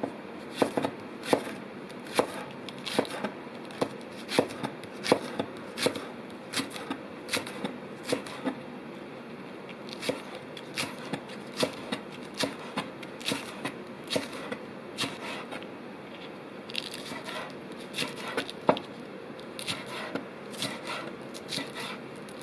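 Kitchen knife slicing turkey meat on a wooden cutting board: sharp knocks of the blade on the board, about two a second and unevenly spaced, with a brief lull about two-thirds of the way through.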